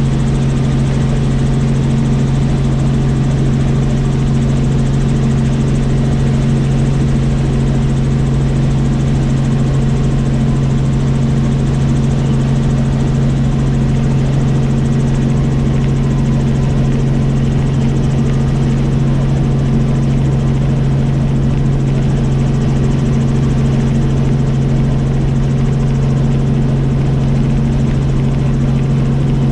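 Tour helicopter in flight: a loud, steady drone of rotor and engine, with a strong low hum that does not change.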